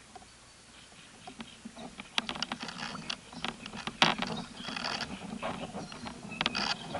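Close rustling and clicking as a spinning rod is handled and lifted up through dry reeds, getting denser about two seconds in, with a sharp click about 4 seconds in.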